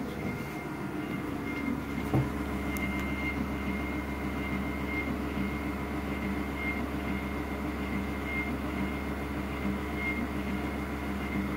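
Reebok GT40S treadmill running unloaded, its motor and belt giving a steady hum with a thin high whine, while the incline motor raises the deck. A single sharp click about two seconds in.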